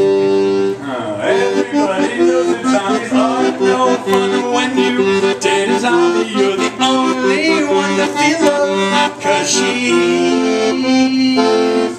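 Accordion playing the instrumental close of a song, a run of held chords and melody notes that stops right at the end.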